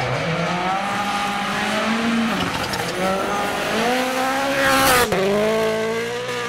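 Hyundai i20 N Rally1 car's turbocharged four-cylinder engine revving hard through the gears on a gravel stage: the pitch climbs, falls back about two seconds in, then climbs again to a peak near five seconds. Gravel hisses from the tyres as the car slides.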